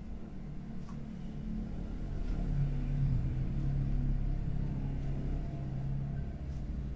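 Low rumble like a motor vehicle's engine, building to a steady low hum about two and a half seconds in and easing off near the end.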